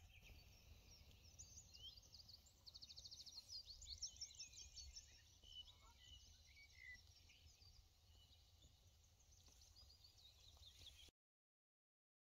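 Faint birdsong: small songbirds chirping, with a quick trill about three seconds in, over a faint low rumble. The sound cuts out to dead silence about eleven seconds in.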